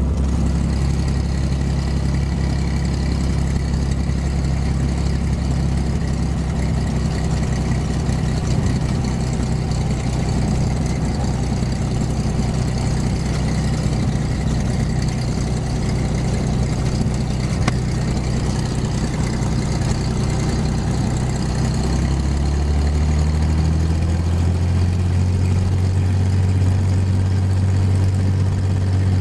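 Light aircraft's engine and propeller running at low taxi power, heard from inside the cabin. The steady engine note changes about three-quarters of the way through.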